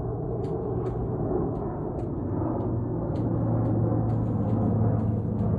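Airplane engine rumble as a plane flies past: a deep, steady rumble with a low hum that grows louder.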